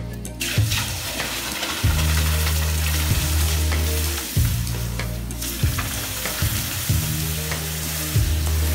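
Hot metal casting quenched in a basin of water, sizzling and hissing as the water flashes to steam. The sizzle starts just after it is plunged in and runs on steadily.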